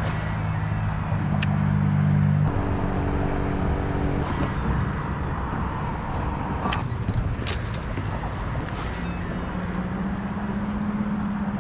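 A bass boat's motor humming steadily, its pitch stepping up and down a few times as the speed changes, over a constant rush of wind and water, with a few light clicks.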